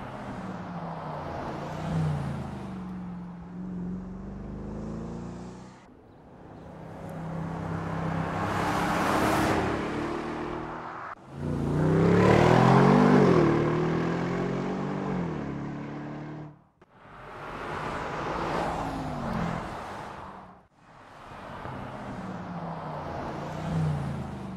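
Bentley Continental GT V8 S's twin-turbo V8 engine accelerating past in several separate passes, its pitch climbing under throttle and dropping at the gear changes. Each pass swells and fades and breaks off abruptly; the loudest is about halfway through.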